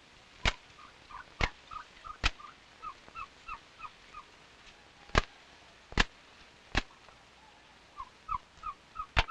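A hank of white fiber being flicked by hand, giving sharp cracks, about seven of them at uneven spacing. Between the cracks a bird calls in quick runs of short chirps.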